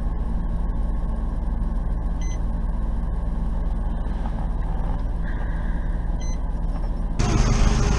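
Idling fire-apparatus engine giving a steady low hum, with a short high beep about every four seconds. Near the end the sound switches abruptly to louder, rougher noise.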